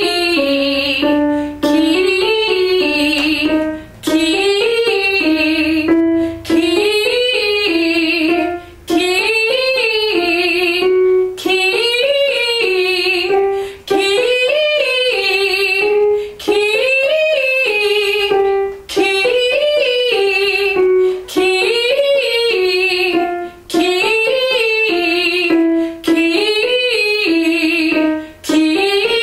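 A woman singing the syllable "key" up and down a triad over and over, with piano accompaniment. Each repeat starts a step higher through about the middle, then the repeats step back down.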